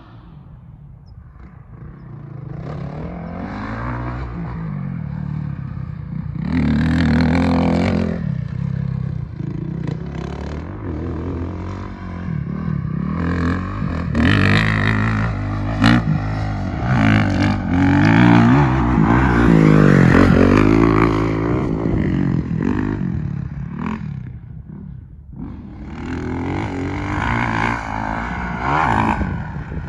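Dirt bike engine heard from a distance, revving up and down as the bike rides the track. It starts faint, grows louder through the middle, briefly fades, then picks up again near the end.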